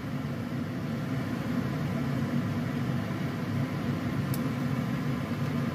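Steady low rumble of a steamer wok on a lit stove, with water boiling under the steaming rack.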